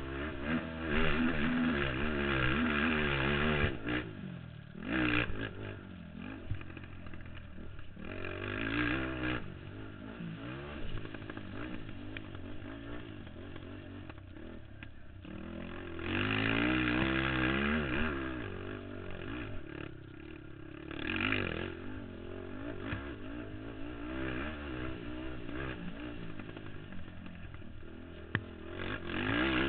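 Racing ATV engine heard from on board the quad, its pitch rising and falling as the throttle is opened hard and backed off again and again. The loudest full-throttle bursts come every few seconds, between quieter stretches of lower revs.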